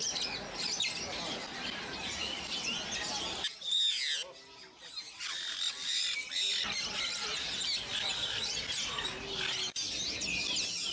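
Many small birds chirping and twittering together in a dense chorus of short, high calls, with the sound dropping away for a few seconds near the middle.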